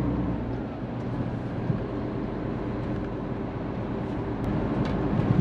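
Steady drone of a Hino truck's diesel engine and road noise heard inside the cab while the truck drives along, with a couple of faint ticks near the end.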